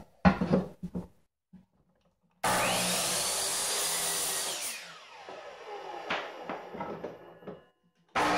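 Electric miter saw switched on, running about two seconds through a pine board, then switched off, its pitch falling as the blade winds down. A few short knocks come first, and the saw starts again near the end.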